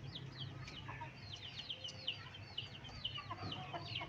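Young Aseel chickens peeping: a continuous run of short, high-pitched calls, a few a second, over a low steady hum.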